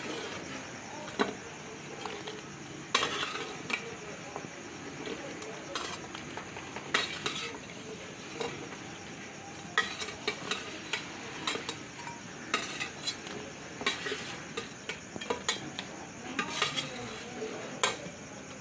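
A metal spoon scraping and knocking against a cooking pan as fish curry is stirred, in irregular clusters of clinks, over a steady sizzle.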